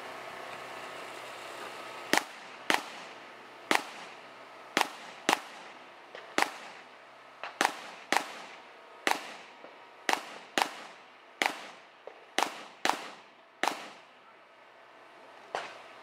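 A string of about sixteen gunshots from a shooter working a row of cardboard targets, starting about two seconds in. They come mostly in pairs about half a second apart, each with a short echo.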